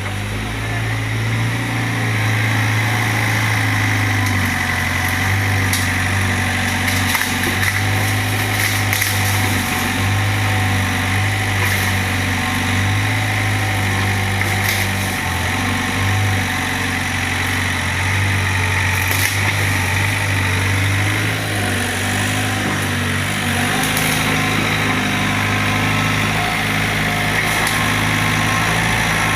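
Doosan 55W excavator's diesel engine running steadily, its pitch dipping and rising slightly a few times as the load changes, with faint clicks now and then.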